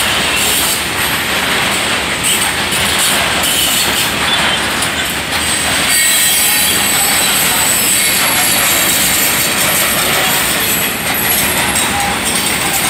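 Freight train of loaded coal hopper cars rolling past, steel wheels running steadily over the rails, with thin high-pitched wheel squeal now and then.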